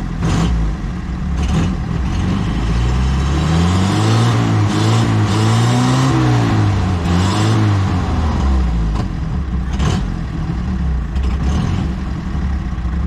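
1935 Austin 7 Ruby's 747 cc four-cylinder side-valve engine running just after starting, revved up once and let back down to idle between about three and eight seconds in.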